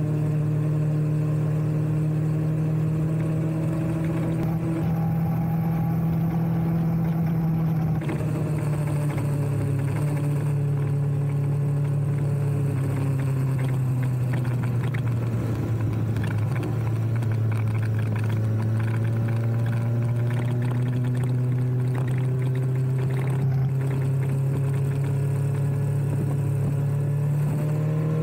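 BMW S1000RR's inline-four engine running steadily under way. Its pitch sinks gradually around the middle, then slowly climbs again toward the end.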